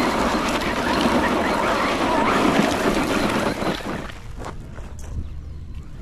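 Hosim X08 brushless 4x4 RC truck driving over rough ground, its motor, drivetrain and tyres making a loud, rough noise that drops away about four seconds in, followed by a few light clicks.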